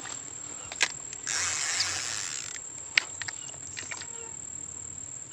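Steady high-pitched drone of insects, with a rushing hiss lasting about a second starting a little over a second in and a few sharp clicks, the loudest about three seconds in.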